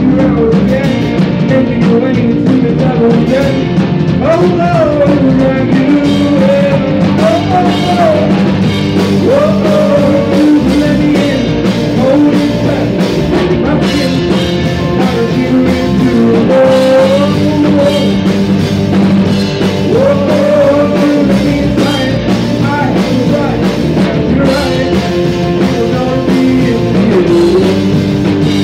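Rock band playing live in a rehearsal room: drum kit, electric bass and electric guitar together, loud and steady.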